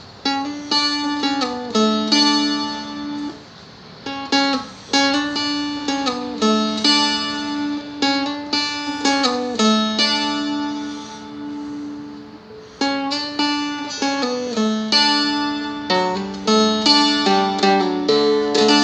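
Seagull Merlin, a fretted dulcimer-style instrument, picked through a melody over a ringing open drone string, with some notes slid up the neck.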